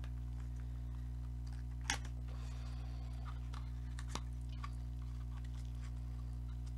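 Small cosmetics box being opened by hand: a sharp click about two seconds in, another about four seconds in, and a few faint ticks of packaging between, over a steady low hum.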